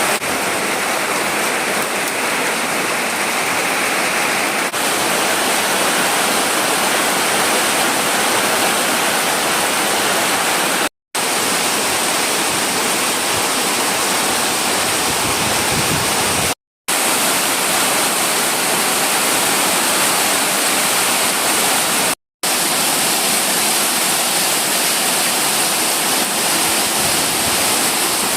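Steady, loud rushing of water, an even hiss that is unbroken except for three very brief silent gaps.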